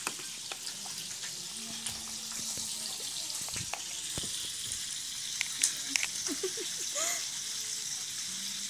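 A thin plastic bag crinkling and crackling as a cat noses into it, with sharp crackles loudest about halfway through, over a steady hiss.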